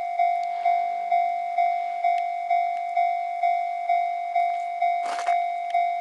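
Japanese railway level-crossing warning bell ringing: a loud, pitched electronic clang repeated about twice a second, each strike fading before the next, signalling that a train is approaching. A brief hiss cuts in about five seconds in.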